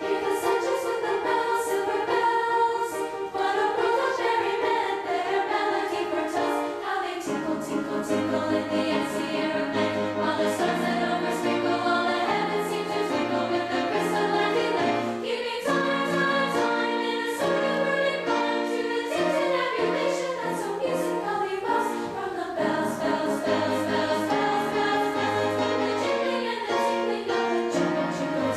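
Girls' choir singing in parts with piano accompaniment; low piano bass notes come in about seven seconds in.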